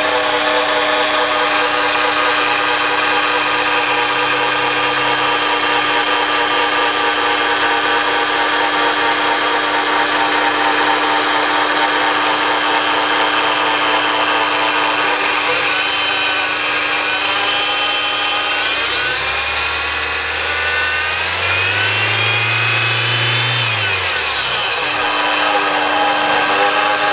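Honda S2000's four-cylinder engine running steadily, with a noise that the owner puts down to the bearings. Near the end the engine is revved once, its pitch rising and then falling back to a steady run.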